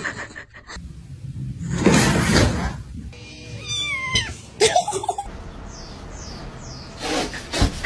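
Cats meowing, with a high cry falling in pitch about four seconds in, between short noisy bursts of scuffling or handling.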